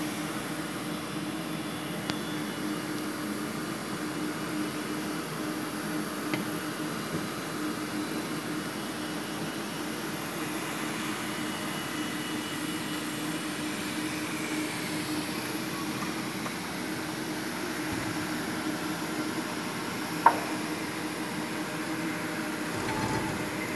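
Siemens Siplace X4 SMT pick-and-place machine running a test cycle: a steady mechanical hum from its drives and fans, with a few faint ticks and one sharp click about twenty seconds in.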